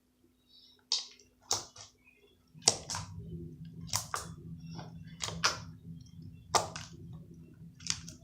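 Homemade slime being squeezed and worked by hand, giving sharp wet clicks and pops about a dozen times. A low rumble runs under them from about two and a half seconds in.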